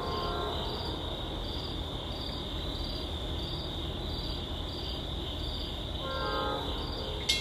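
Crickets chirping steadily in a pulsing rhythm. A distant locomotive horn sounds faintly at the start and again about six seconds in, from an approaching train. Right at the end a grade-crossing bell starts clanging.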